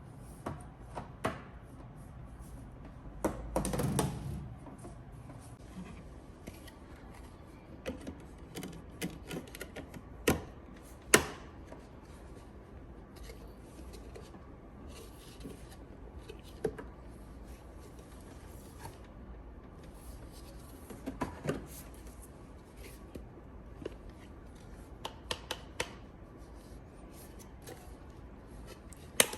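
Scattered clicks, taps and rubbing from hands handling a dehumidifier and its packaging, with a few sharper knocks now and then.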